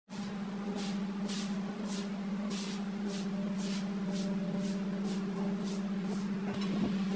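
Oily hands rubbing and wiping a steel cylinder liner, a soft swish about twice a second, over a steady low hum.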